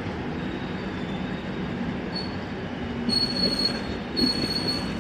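Passenger train coaches rolling past with a steady rumble of wheels on the track. From about two seconds in, a high, thin wheel squeal comes and goes three times.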